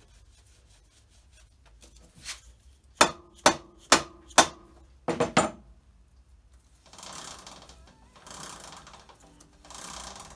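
A run of sharp knocks, then three rubbing swishes as the rear wheel is spun by hand with the brake pads dragging on the disc, the sign of a sticking rear brake caliper on a 1994 Triumph Tiger 900.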